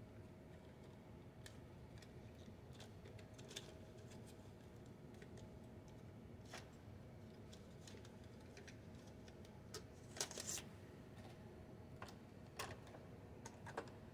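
Scattered light clicks and taps of plastic parts as a Lionel O-gauge model locomotive is handled and fingers work at its wheel trucks, the loudest little cluster about ten seconds in. Otherwise near silence with a faint steady hum.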